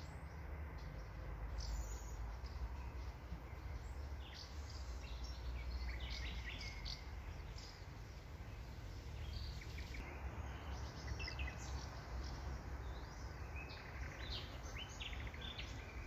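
Outdoor ambience of small birds chirping in short, irregular calls, over a steady low rumble.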